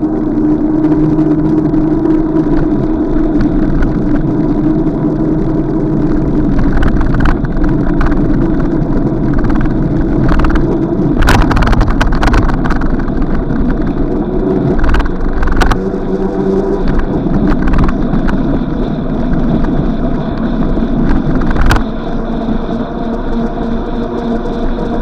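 An engine running steadily, with a few sharp knocks and clatters around the middle and one near the end.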